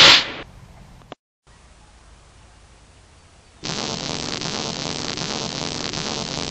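A sudden loud whoosh-like noise burst right at the start, then a quiet stretch. About three and a half seconds in, a steady electric crackle and static hiss begins, the sound effect for lightning sparking around a person's hands.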